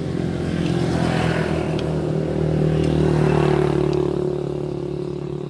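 A motor vehicle driving past, its engine hum growing louder to a peak about three seconds in and then fading away.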